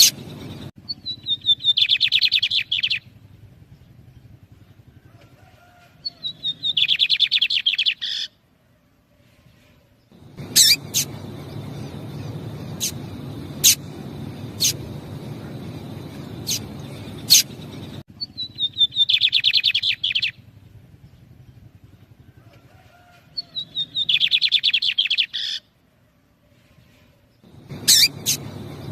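Lined seedeaters (bigodinhos) singing: four bursts of rapid, trilled song, each about two seconds long and opening with a few falling notes. Between them comes a run of short, sharp single call notes, over a low steady background noise.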